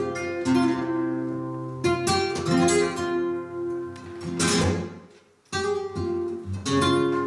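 Two flamenco guitars playing tientos-tangos: sharp strummed chords that ring out. The playing drops away to near silence just past the middle, then a loud strummed chord picks it up again.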